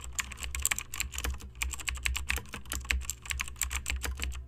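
Computer keyboard typing: rapid, irregular key clicks over a low hum, keeping pace with on-screen text being typed out letter by letter.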